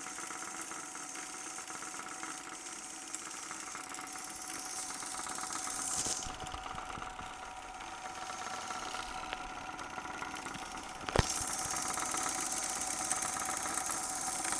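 Bolex Paillard 18-5 8mm film projector running steadily: a constant motor hum with a fast, even ticking from the film mechanism. A single sharp click about eleven seconds in.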